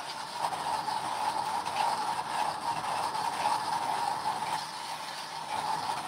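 Comandante C40 Mk IV hand coffee grinder being cranked, its burrs crushing coffee beans in a steady, wavering crunch.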